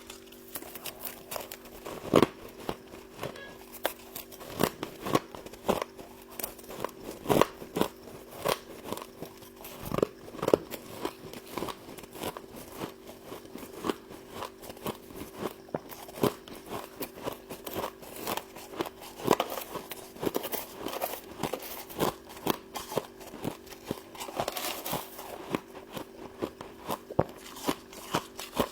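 Frost being bitten and chewed close to the microphone: a dense, irregular run of sharp crunches and crackles, several a second. A steady hum runs underneath.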